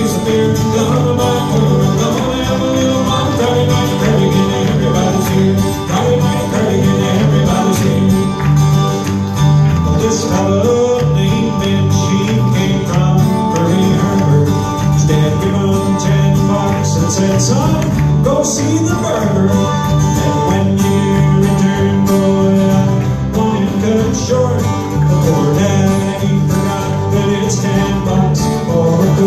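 Live band music from a fiddle, two acoustic guitars and an electric bass playing together, in a bluegrass/country folk style.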